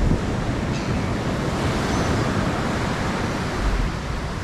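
Surf breaking and washing on an ocean beach, a steady rush of waves, with wind buffeting the microphone.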